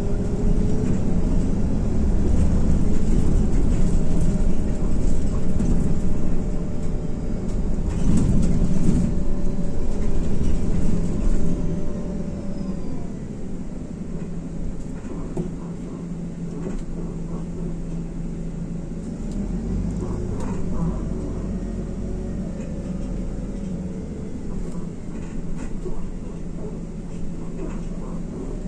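IVECO Crossway LE bus with its Cursor 9 straight-six diesel, heard from inside the cabin: a steady low engine drone with a whine that glides up and down in pitch. It runs louder for about the first twelve seconds, then drops to a quieter, even run.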